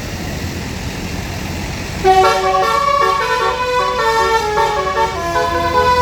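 Basuri telolet horn, a multi-note melodic vehicle horn, playing a quick tune of short stepped notes that starts about two seconds in, over a steady low vehicle rumble.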